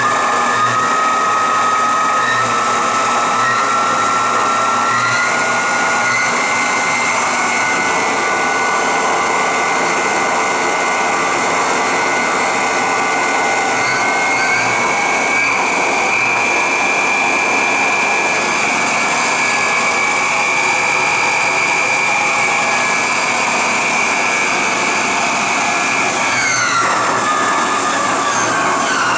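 Bridgeport Powerpath 15 CNC lathe spindle running free with no cut. Its drive whine steps up in pitch several times over the first half as the spindle speeds up, holds steady, then drops near the end as the spindle slows.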